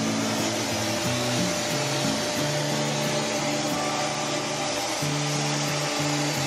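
Dyson vacuum cleaner running steadily, sucking through a long, thin flexible hose attachment (a Lint Lizard) pushed under a refrigerator to pull out built-up dust. Background music plays over it.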